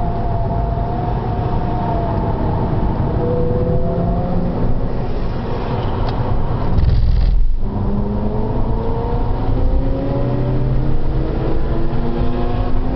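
Seat Altea FR's engine under track driving: the revs fall for the first few seconds, the sound breaks briefly about seven and a half seconds in, then the revs climb steadily under acceleration.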